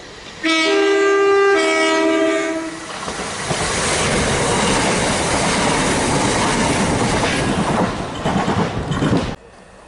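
Southern Class 377 Electrostar electric train sounding its two-tone horn for about two seconds, then rushing past at speed with loud wheel-on-rail and air noise, which cuts off suddenly near the end.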